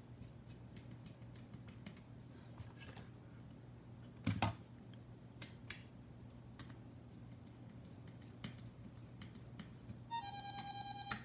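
Small clicks and taps of a screwdriver and plastic parts as screws are driven into the opened plastic case of a radio transmitter, with one louder clack about four seconds in, over a faint low hum. Near the end a pitched electronic alert tone sounds for about a second.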